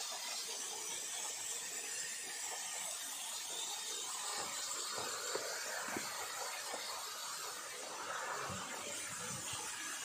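Steady rushing hiss of a small waterfall, thin streams splashing down a rock face into a pool, with a few soft low thumps in the second half.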